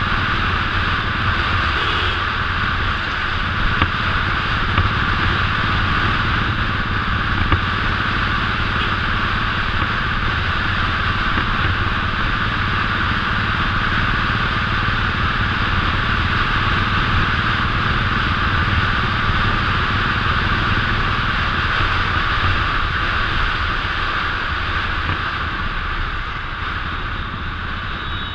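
Royal Enfield 500cc single-cylinder four-stroke motorcycle engine running steadily under way, heard from on the bike, with a steady rushing noise over it.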